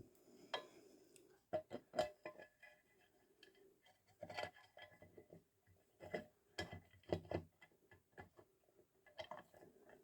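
Light irregular clicks and knocks, in a few short clusters, as a metal clutch cover is handled and fitted onto the engine case.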